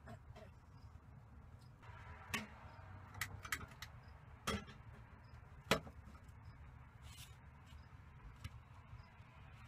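Several sharp, separate clicks and knocks, the loudest a little before six seconds in, over a faint low rumble.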